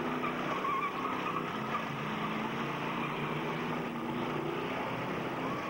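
Several demolition-derby cars' V8 engines running and revving together, a steady mixed engine drone without a distinct crash.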